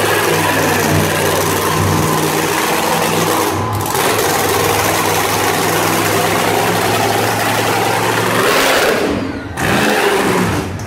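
Monster truck engine running loud and steady, with a short sudden dip about nine and a half seconds in before it picks back up.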